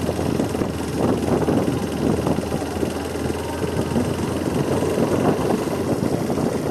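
Motorcycle engine running steadily under way, mixed with road and wind noise at an even level.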